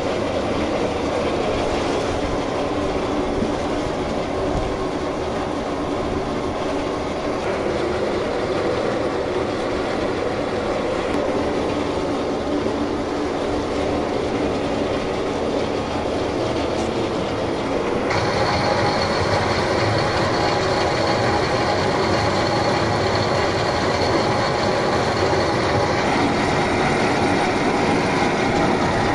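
Motor-driven rotary drum carrot washer running steadily as it tumbles carrots. About eighteen seconds in the sound gets brighter and a thin high whine joins it.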